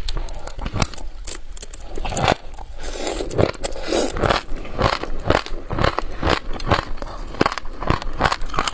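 Sesame seeds being chewed: a quick, irregular run of small crunching and crackling clicks, a few each second.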